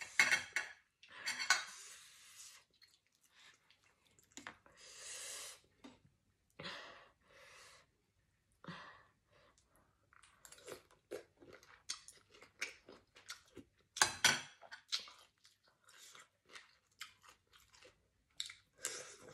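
A person chewing mouthfuls of prawn salad wrapped in fresh greens, with irregular short clicks and smacks from the mouth. It is loudest near the start and again a little past the middle.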